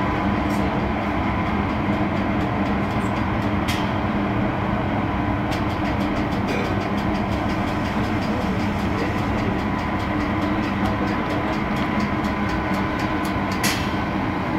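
Bucyrus 495HR electric rope shovel running as it swings its upper works: a steady electric hum and whine with several held tones. A run of light, rapid clicks sets in about halfway through, with a couple of sharper ticks.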